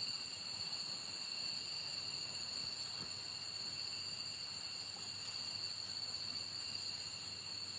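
Steady chorus of night insects trilling at several high pitches at once, over a faint even hiss.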